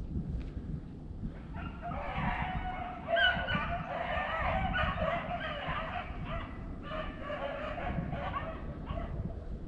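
A pack of beagles baying and bawling together on a rabbit's trail, the hound music of a chase, starting about a second and a half in. Wind buffets the microphone underneath.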